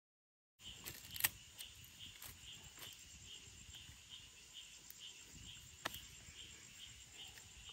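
Insects chirping: a cricket-like chirp repeating about three times a second over a steady high hiss. It starts abruptly after a moment of silence and is broken by two sharp clicks, about a second in and near six seconds.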